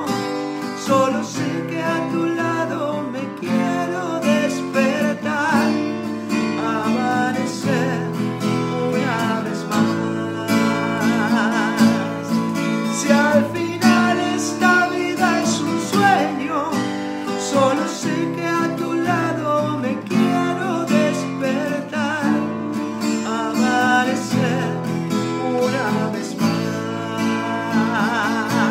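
A man singing, with a wide vibrato on held notes, to his own strummed acoustic guitar.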